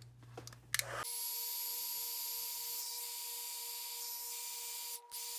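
Embossing heat tool switched on about a second in, its fan blowing hot air with a steady whir, a hum and a high whine, melting embossing powder so it raises and shines.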